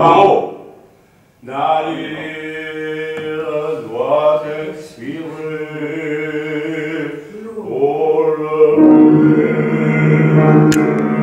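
A man singing an operatic French art song or aria with piano accompaniment. A loud held note ends at the start and there is a short pause. The singing then resumes and swells to a loud passage near the end.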